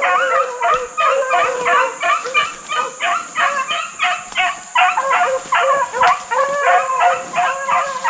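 Deer-hunting hounds baying in a continuous run of short, rapid calls, about three or four a second, at slightly different pitches, as they work the scent where a deer was seen to cross.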